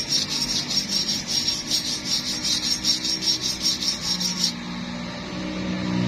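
Fast, even scraping strokes, about five or six a second, that stop about four and a half seconds in, over a faint low steady hum.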